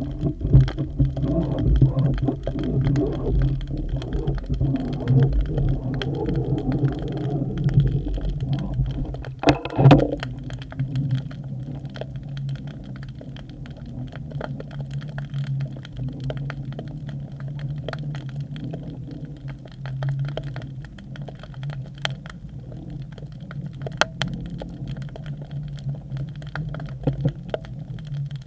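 Muffled underwater sound from a camera submerged in a river: a steady low hum over a rumble, with scattered faint clicks and one louder knock about ten seconds in.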